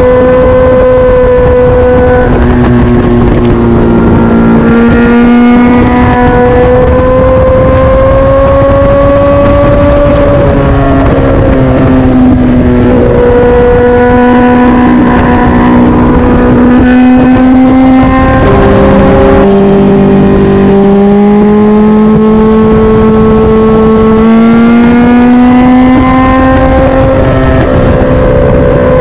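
Motorcycle engine running hard at highway speed, its pitch holding for a few seconds at a time and then rising or falling with throttle and gear changes, with a clear drop about twenty seconds in. A steady rushing noise runs underneath.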